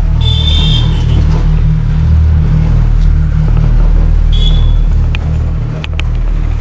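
A loud, deep, steady rumble, with a brief high warbling chirp near the start and again about four seconds in, and a few sharp clicks near the end.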